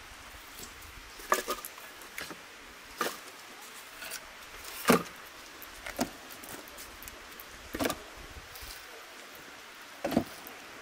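Firewood logs and sticks knocking against each other and the oven floor as they are stacked by hand inside a clay dome oven: irregular wooden knocks every second or two, the loudest about halfway through.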